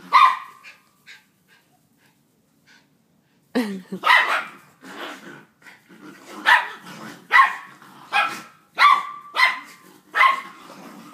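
Dogs barking while a pit bull and a Jack Russell terrier tussle: one bark right at the start, a pause of about three seconds, then a run of short, sharp barks with growling between them, coming every half second to a second.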